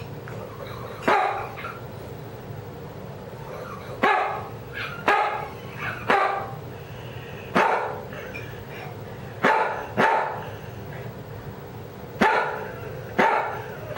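Dog barking about nine times at irregular spacing, each bark trailing off with a wheeze. The wheeze comes only with her barks and began after she started vinblastine chemotherapy.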